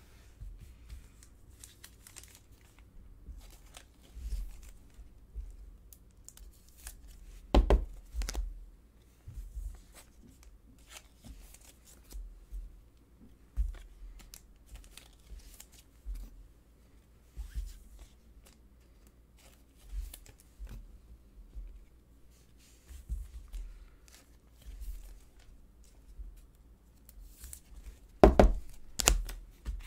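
Glossy Panini Prizm trading cards being handled and slid against one another, with soft scattered clicks and scrapes and one louder tap about a quarter of the way in. Near the end comes a louder ripping and crinkling: a foil card-pack wrapper being torn open.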